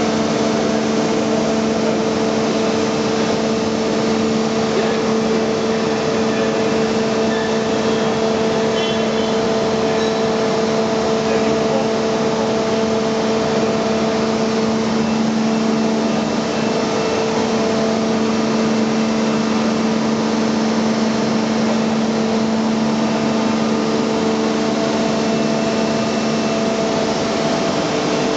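Giddings & Lewis PC40 CNC table-type horizontal boring machine running under power: a steady machine hum with a constant whine over a noisy rush, unchanging.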